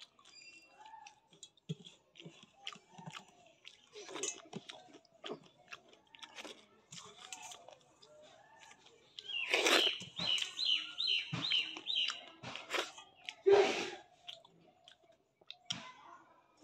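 Close-up chewing and crunching of a raw green chilli pepper, with a louder run of rapid sounds about ten seconds in.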